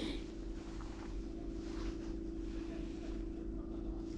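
A steady low machine hum holding one pitch, with a faint rumble underneath.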